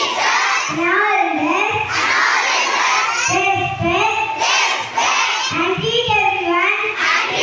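A group of children singing loudly in unison, unaccompanied, in sustained phrases that glide up and down in pitch.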